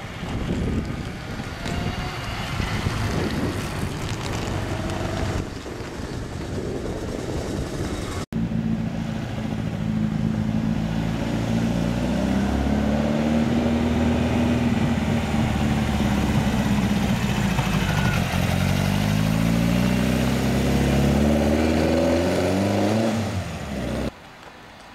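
A car going by with wind on the microphone, then, after a sudden cut, the engine of an open beach buggy running loud and close. Its pitch holds fairly steady, then climbs over the last few seconds as it accelerates away, before cutting off abruptly.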